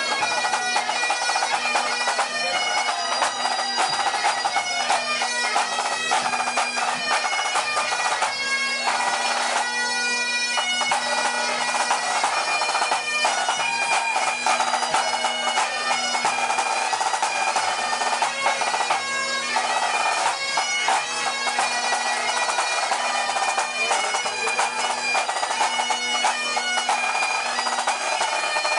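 Several Great Highland bagpipes playing a tune together: the drones hold one steady low note under the chanters' melody.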